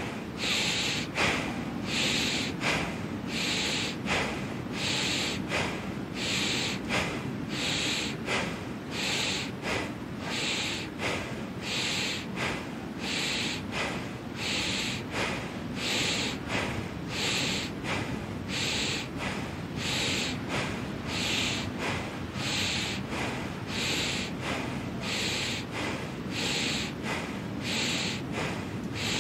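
Bhastrika (bellows breath) pranayama: forceful, even breaths pumped by the belly through the nose, in a quick steady rhythm of a little more than one breath a second.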